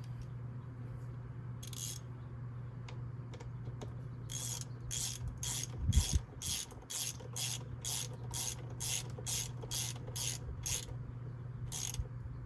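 Hand ratchet clicking in a regular run of about two or three clicks a second, with a dull knock about six seconds in and a steady low hum underneath.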